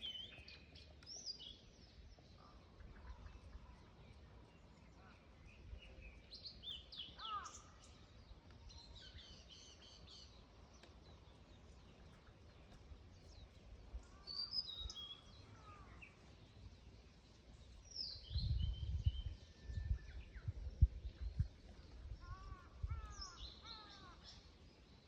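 Blue-and-white flycatcher singing: short, high, warbled phrases repeated every few seconds. A low rumbling comes in about two-thirds of the way through and is the loudest part.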